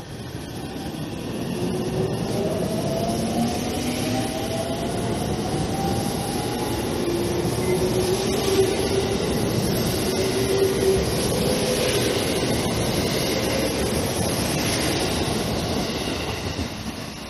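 JR Central 313 series electric multiple unit pulling out of the station and accelerating past: several rising whines from its motors as it gathers speed, over steady wheel and rail noise, fading as the last car leaves near the end.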